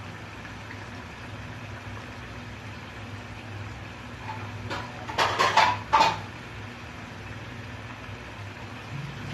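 Steady low hum in a kitchen, with a brief clatter of metal pot or lid knocks about five seconds in.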